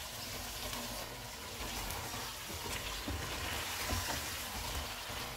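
Chicken and freshly added chopped tomatoes sizzling steadily in hot oil in a pot, with a few faint taps and scrapes of a spoon as the mixture is stirred.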